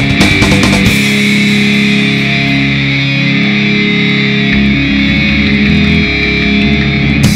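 Heavy metal music with electric guitar. Drums hit for about the first second, then drop out under held guitar chords, and come back in near the end.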